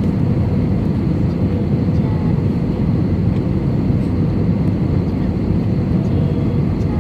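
Steady cabin noise of an Airbus A320-200: engine and airflow rumble heard from inside the passenger cabin, even and unbroken.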